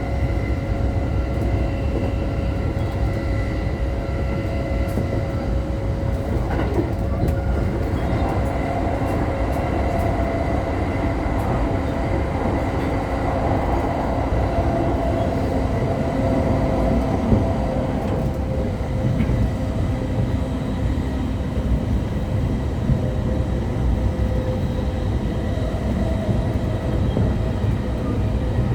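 JR E231 series commuter train heard from inside the car while running between stations: a steady rumble of wheels on rail with several constant motor tones.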